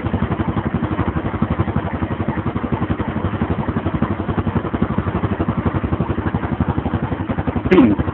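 UM Renegade motorcycle engine running steadily in first gear with an even pulsing beat, the rear wheel and chain turning freely on the stand. A brief sound that slides in pitch cuts in near the end.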